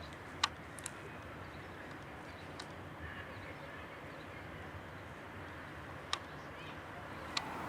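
A few sharp, separate clicks or knocks spread over several seconds, the loudest about half a second in, over a steady background hiss.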